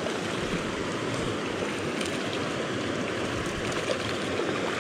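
Small stream's water running with a steady, even rush.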